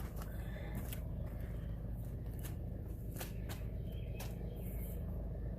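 Hands working on a push mower's drive belt and housing: scattered light clicks and rustles over a steady low rumble.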